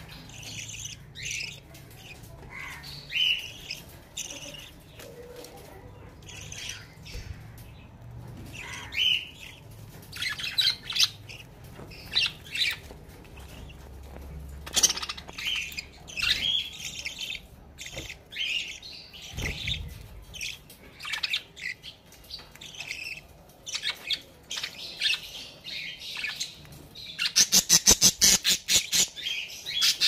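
Several budgerigars chirping and warbling in short scattered calls, with a louder rapid run of sharp pulses, about eight a second, for a couple of seconds near the end.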